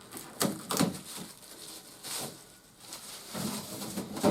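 Two sharp knocks, then light rustling and scattered handling noise from plastic toy parts and packaging being moved about.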